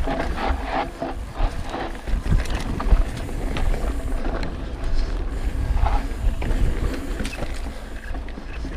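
Ibis Mojo HDR650 full-suspension mountain bike rolling fast down a dirt trail. Wind buffets the microphone while the tyres crunch over the dirt and the bike rattles and clicks over the bumps.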